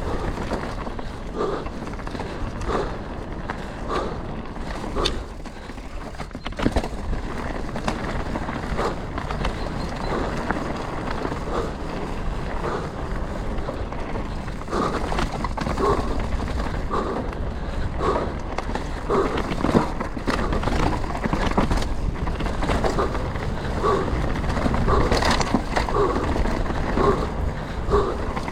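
Canyon Spectral 125 mountain bike rolling over a rough trail: tyres rumbling on dirt and stones, with frequent clicks and rattles from the chain and frame over bumps. Through it come the rider's short, regular breaths, steadier in the second half.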